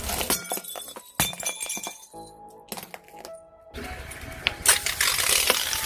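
Music over a run of sharp cracking, crunching and clinking impacts as brittle objects are crushed, with a denser, louder stretch of crunching from about four seconds in.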